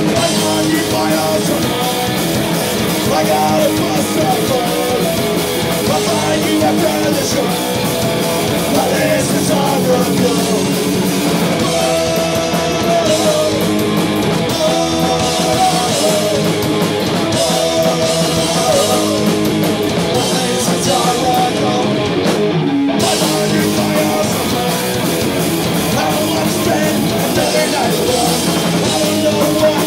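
Punk rock band playing live and loud, with electric guitars and a drum kit. The playing runs on without a break except for a brief stop in the drums and cymbals about three-quarters of the way through.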